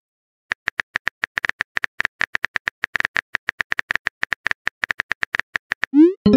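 Phone keyboard typing sound effect: rapid clicks, roughly ten a second. Near the end they stop and a short rising swoosh leads into a message-sent pop.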